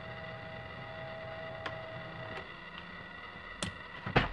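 BMW E46 power seat motor running with a faint steady hum, stopping about two seconds in. Then come a few sharp clicks and knocks, the loudest near the end.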